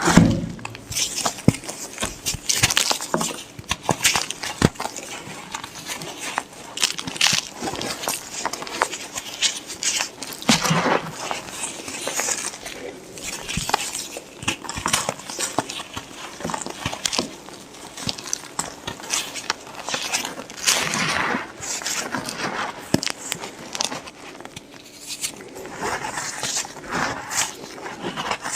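Blocks of white Plain Jane gym chalk being crushed and crumbled, a continuous dense crackling and crunching with many small sharp snaps.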